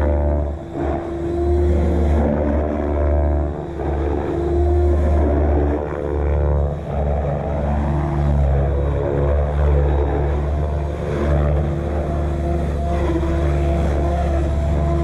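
Electric RC helicopter hovering: its rotor blades beat steadily over the whine of the motor and drive gears, and the pitch drifts slightly as the head speed shifts.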